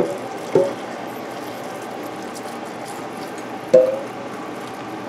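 Hot water being poured from a kettle into glass canning jars of cranberries: a steady splashing hiss, with two brief ringing clinks about half a second and nearly four seconds in.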